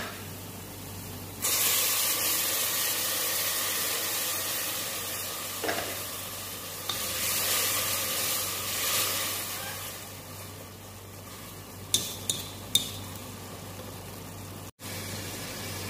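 Boiling water poured into a pot of hot fried onion and tomato base, starting a loud sudden sizzling hiss about a second and a half in that goes on for several seconds. Near the end there are a couple of sharp clicks of the wooden spatula against the pot.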